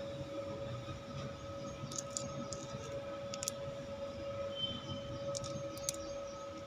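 A steady hum with a constant mid-pitched tone runs throughout. A few light clicks of quartz crystals knocking together as they are handled come in small groups, around two to three seconds in and again near the end.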